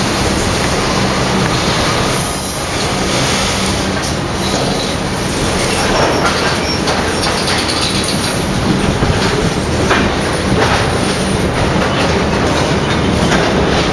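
Intermodal freight train's flat container wagons rolling past: a steady rumble of steel wheels on rail, with a run of clicks from the wheels over the rail joints from about halfway in.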